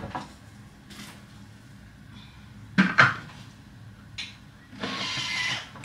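Kitchen handling clatter around a Thermomix: scattered clicks and knocks, the loudest a sharp knock about three seconds in, then a short rushing noise lasting under a second near the end.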